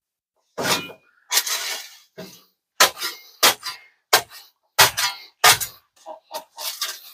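Repeated clanking strikes of a metal tool packing dirt around the base of a post, about one every two-thirds of a second, the last few softer.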